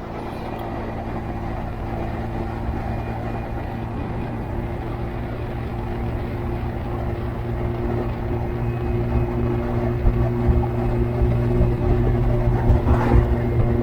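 Motorcycle engine running at a steady speed while riding, with wind on the microphone that becomes gustier in the last few seconds.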